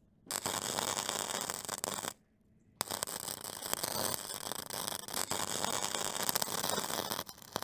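Crackling, clicking noise from an end-screen glitch sound effect. It cuts out for under a second just after two seconds in, then starts again.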